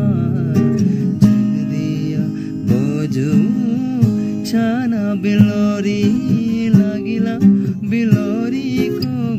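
A man singing a winding, ornamented melody over strummed acoustic guitar.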